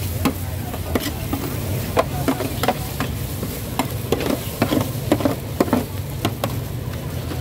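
Stir-frying in a wok: a metal spatula clanks and scrapes against the pan in quick irregular strikes, over a steady low rumble and sizzle.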